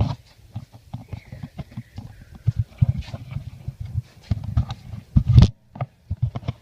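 Irregular dull thumps of someone moving about on foot, with knocks on the carried camera, and one louder thump a little over five seconds in.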